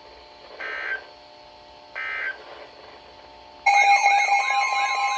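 Two short bursts of screechy Emergency Alert System data tones, about a second and a half apart, over a low steady hum: the end-of-message code that closes an EAS warning. About three and a half seconds in, a much louder alert tone cuts in, steady tones with a pitch wavering up and down over them, as the next alert starts.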